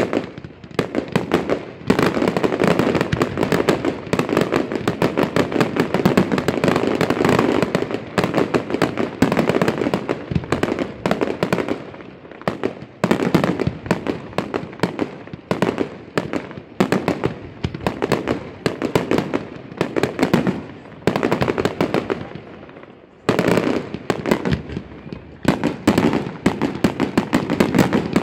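Fireworks display: aerial shells and salutes bursting in rapid, dense barrages of bangs and crackling, with a couple of brief lulls between volleys.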